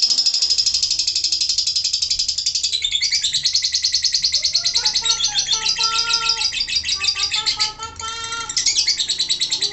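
Female lovebird's ngekek: a long, rapid, high-pitched chattering trill delivered while she sits on her perch, breaking off briefly about eight seconds in and then resuming. This long chatter is the sign of the steady, settled condition the keeper's care aims for.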